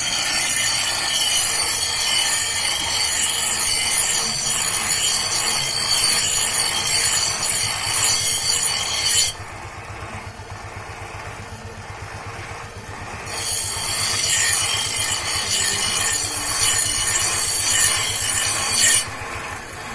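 A metal blade being sharpened against an abrasive, giving a harsh, rasping scrape. The scrape stops abruptly about nine seconds in, resumes about four seconds later, and stops again near the end.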